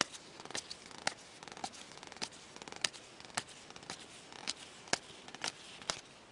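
Glossy hockey trading cards being flipped through one at a time, each card's edge snapping as it is slid off the stack. Sharp clicks about twice a second.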